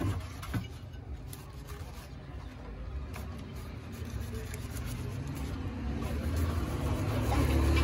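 Knife shredding a cabbage with faint cutting ticks, under a low rumble that grows steadily louder toward the end.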